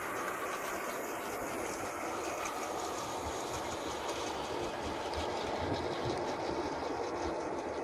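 Model railway train running along the track: a steady running noise with faint clicking from the wheels on the rails.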